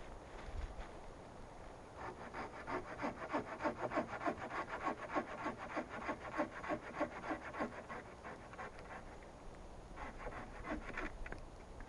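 Rhythmic scraping strokes, about three a second, starting about two seconds in and running for some six seconds, then a few more near the end.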